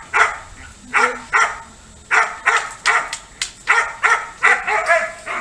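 A dog barking repeatedly in quick runs, about three barks a second, with short pauses about half a second and two seconds in.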